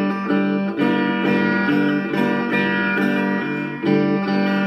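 Instrumental passage of a song: guitar playing a repeating chord pattern, with no singing.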